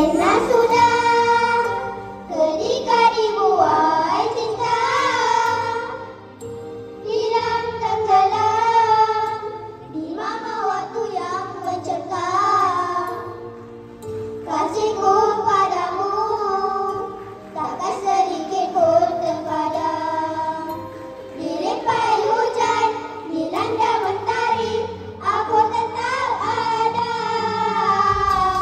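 A group of children singing a song together into handheld microphones over backing music, in sung phrases of about two seconds with short breaks between them.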